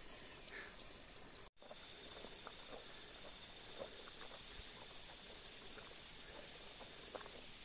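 Steady, high-pitched trilling of insects in the forest, with faint scattered rustles and small clicks of movement.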